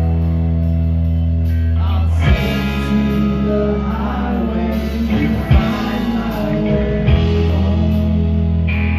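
Live rock band playing loud: electric guitar, bass guitar and drums. A sustained, ringing chord gives way about two seconds in to a man singing over the band with a few drum hits, and the held chord returns near the end.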